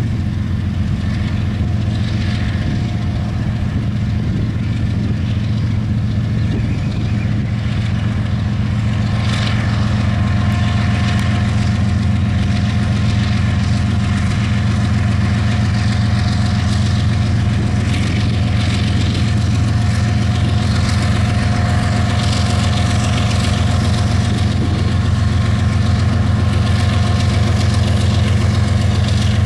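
Diesel-electric locomotives of a Kansas City Southern de México freight train running steadily as they roll slowly past, the deep engine sound with a faint steady whine above it, growing gradually louder.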